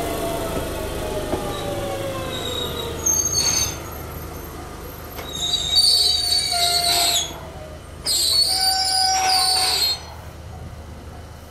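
Tobu 100 series Spacia electric train slowing, its Hitachi GTO-VVVF inverter-driven motors whining down in pitch. Its wheels then squeal in three high-pitched bursts, about three, six and eight seconds in, the last two the loudest.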